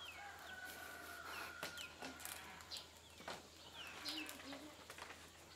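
Light clicks and rustles of split weaving strips being worked into an open-weave basket by hand, with short high chirps of birds in the background.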